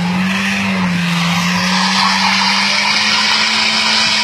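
Car engine held at steady high revs, its note nearly constant, with the hiss of tyres spinning and sliding on lake ice as the car drifts.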